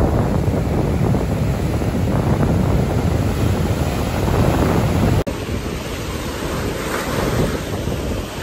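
Ocean surf breaking and washing up the beach, with strong wind buffeting the microphone. The sound drops out for an instant about five seconds in, then the surf and wind carry on.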